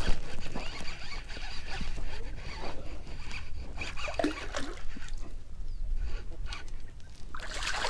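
Knit sweater sleeve brushing and rubbing against the camera while a hooked fish is landed from a kayak, with scattered knocks of handling and a louder rustle near the end.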